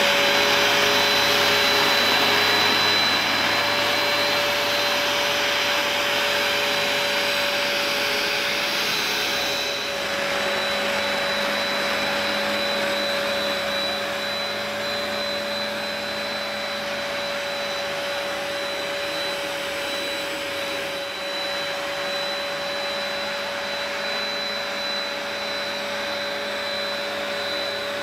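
Vax Compact Power carpet washer running over carpet, very noisy: a steady whine over a loud rush of suction air. It grows a little quieter in steps as the machine is worked back and forth.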